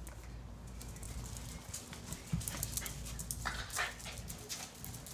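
A dog moving about, making a scatter of light clicks and short scuffles.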